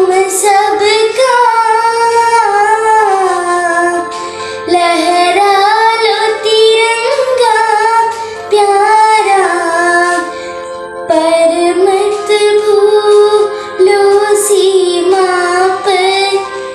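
A young girl singing a melody solo in phrases, with short breaks for breath, over a steady held instrumental backing.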